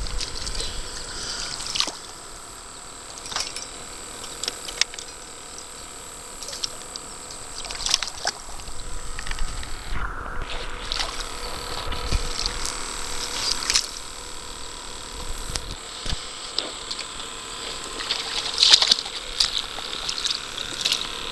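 Shallow river water splashing and trickling around wading feet, with scattered sharp clicks and knocks throughout.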